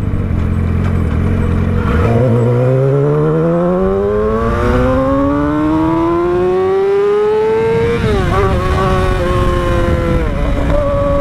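2006 Yamaha R6's 600 cc inline-four engine under way. It runs steady at low revs, then climbs smoothly in pitch for about six seconds as the bike accelerates hard through a gear. The pitch drops suddenly about eight seconds in, then holds steady at higher revs.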